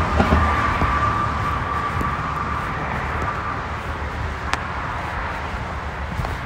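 Street traffic noise outdoors: a steady rush over a low rumble that slowly fades, with a faint high whine that dies away after about three seconds and a single click about four and a half seconds in.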